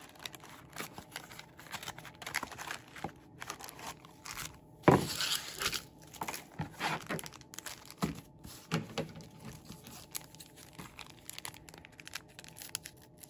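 A sealed cardboard booster box is ripped open, with one loud tear about five seconds in. The foil booster packs inside crinkle as they are pulled out and handled, and one pack is cut open near the end.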